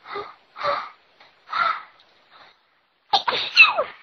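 A person in a sneezing fit: three short breathy bursts in the first two seconds, then a louder sneeze about three seconds in, with a voiced cry that falls in pitch.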